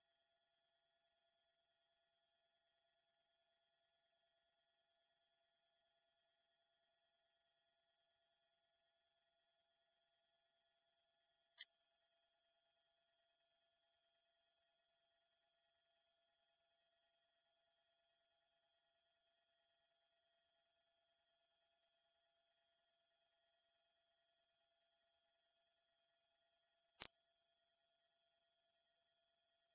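Dog whistle sound effect: one steady, very high-pitched pure tone held without a break, with a faint click about twelve seconds in and another near the end.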